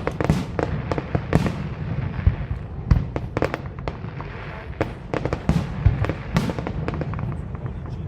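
Fireworks display at a distance: a rapid, irregular run of aerial shell bursts and crackling, with bangs every fraction of a second over a continuous low rumble of echoing booms.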